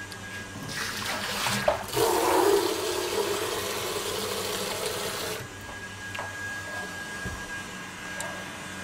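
Water rushing hard from a kitchen tap for about four seconds, starting about a second in and cutting off suddenly.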